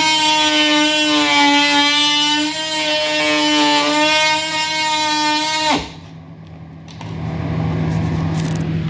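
DeWalt cordless oscillating multi-tool running on a Powerstack battery, cutting into wooden door casing: a loud, high buzz whose pitch wavers slightly under load, cutting off suddenly about six seconds in. After a brief lull, a steadier, noisier hum follows.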